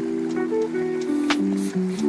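Background music: held chords whose notes shift in pitch every half second or so, with a couple of light ticks.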